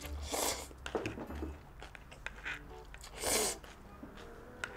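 Spicy cold buckwheat noodles (mul-naengmyeon) slurped from the bowl: two long, loud slurps, one near the start and one about three seconds in, with a shorter one about a second in.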